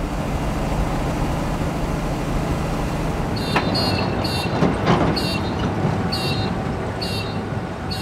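Road train's diesel engine running with a steady low drone as the truck rolls slowly past. About three and a half seconds in, a string of short, high squeaky chirps starts and repeats every half second or so.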